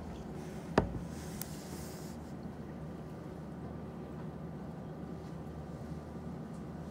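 Steady low room hum, with one sharp tap about a second in, followed by a brief soft hiss.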